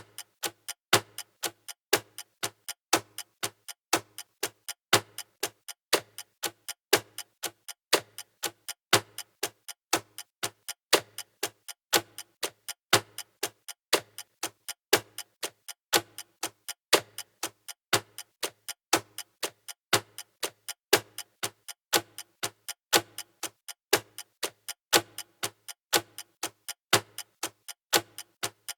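Clock ticking sound effect: sharp, even ticks at about two a second, alternating a louder and a softer stroke like a tick-tock.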